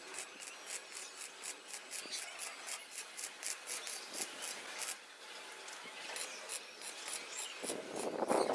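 Electric arc welding on a steel-tube frame, crackling in quick regular pulses about five times a second. Near the end an angle grinder starts grinding the fresh weld, much louder.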